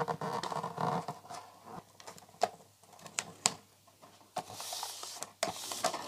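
Wood-grain adhesive paper being handled and smoothed onto a cardboard box: paper rustling at first, then a few light taps and clicks, with a short hissing rub about two-thirds through.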